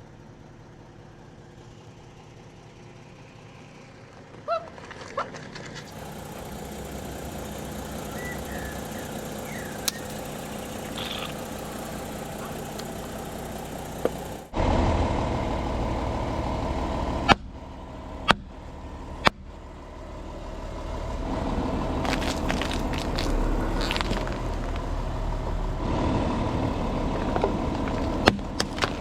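A car engine idles while the car rolls slowly, with several short sharp cracks and pops: objects bursting and breaking under its tyres.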